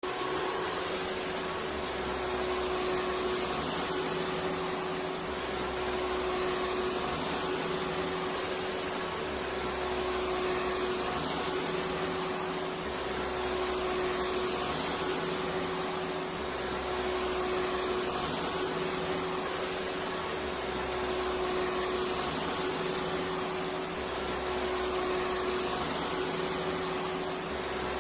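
Electric vacuum cleaner running steadily: a constant rush of air over the motor's even hum.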